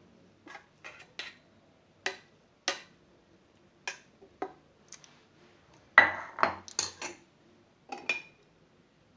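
A metal spoon clinking and knocking against a glass and dishes: a string of separate, irregular clinks, with the loudest cluster about six seconds in.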